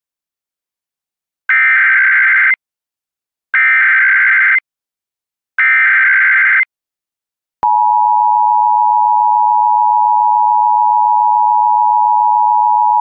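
Emergency Alert System tones: three one-second bursts of SAME header data, about a second apart. Then the steady two-tone EAS attention signal (853 and 960 Hz) comes on and holds.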